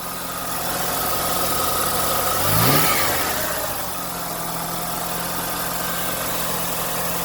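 1990 Mazda RX-7's 13B rotary engine idling with the air conditioning on. About two and a half seconds in the idle swells up, then it drops back and settles steady by about four seconds. The unsteady idle is one the owner suspects may come from a bypass air control valve that needs cleaning.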